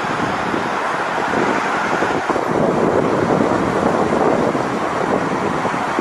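Rough sea surf breaking and washing up the beach, mixed with wind: a steady rushing noise that swells a little around the middle.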